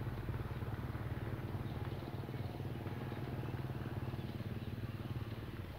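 A motor engine running steadily with a fast, even low throb, growing fainter near the end.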